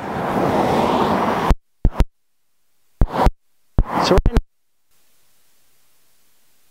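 Audio cutting in and out: a hiss of static swells for about a second and a half and stops dead, then a few short crackling bursts come between stretches of dead silence, and a faint steady hiss sets in from about five seconds in.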